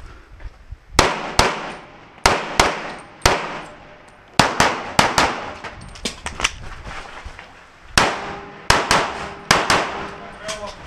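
Pistol shots from a compensated race pistol fired in rapid strings, mostly in quick pairs, with short pauses between groups as the shooter moves between firing positions. Each shot is sharp and loud, with a short ringing tail.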